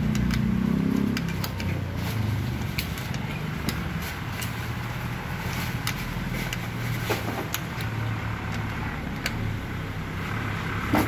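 Light, irregular clicks and taps of a plastic roof-rail mount being fitted by hand onto a car roof, over a steady low hum of a running engine.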